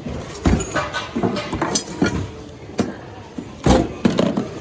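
Irregular clattering and knocking of secondhand goods being rummaged and dropped in thrift-store bins, about seven sharp knocks, the loudest nearly four seconds in.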